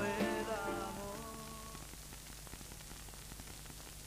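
The last notes of a song on an old cassette tape dying away within the first two seconds, leaving steady tape hiss with a faint low hum in the gap between songs.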